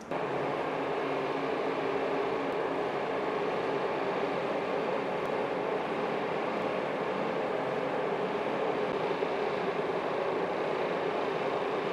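Steady whir of ventilation machinery with a faint hum.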